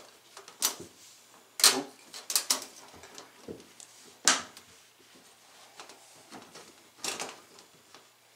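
Handling sounds from refitting a front-load washer's rubber door boot: a few scattered sharp clicks and knocks as the boot's edge is pressed and worked onto the lip of the door opening.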